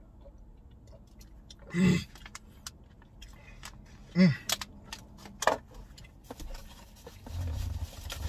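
A man's short wordless vocal sounds, the two loudest falling in pitch about two and four seconds in, among scattered light clicks of handling, with a low rumble near the end.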